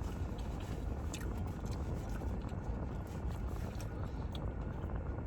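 Steady low rumble of a car heard from inside the cabin, with a few faint clicks of chewing over it.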